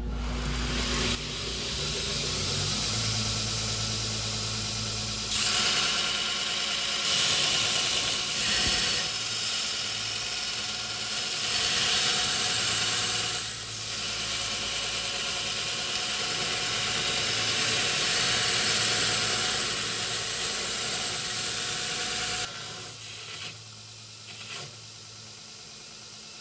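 Belt grinder running, with steel being ground against the belt in several long passes that swell and ease off, before the grinding stops a few seconds before the end.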